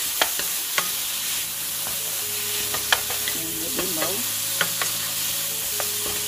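Sliced bell peppers and onions sizzling in a nonstick frying pan as a slotted wooden spatula stirs them. A steady frying hiss runs throughout, with a few sharp clicks as the spatula knocks against the pan.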